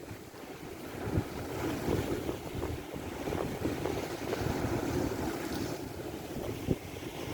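Strong wind buffeting the microphone in an uneven rumble, with a few brief low thumps.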